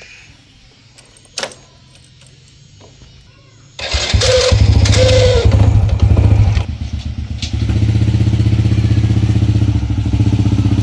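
A small underbone motorcycle's engine is electric-started: after a single click, it catches abruptly about four seconds in and revs up and down twice. It then settles into a steady idle.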